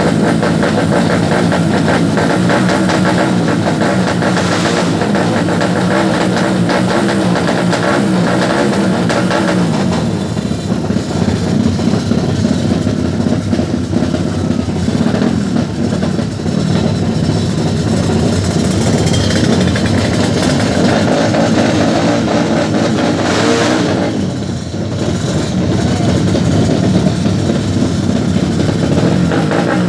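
Tuned four-stroke 200cc underbone drag-racing motorcycle engine running loud and continuously, with revving, dipping briefly twice.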